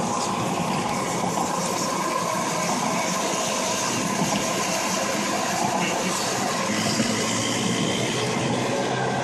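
Steady road and wind noise inside a car's cabin at highway speed, with a faint engine hum underneath.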